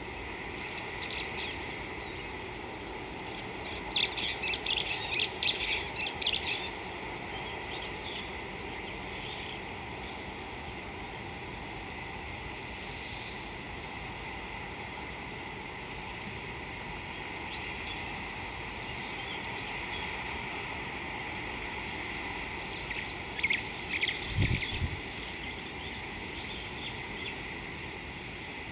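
Bush ambience: an insect chirping in short, evenly repeated pulses, about one or two a second. Bursts of rapid bird chattering come about four seconds in and again near the end, where a brief low thump also sounds.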